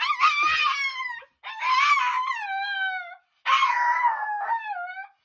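Small dog howling: three long howls in a row with short breaks between them, each sliding down in pitch at the end.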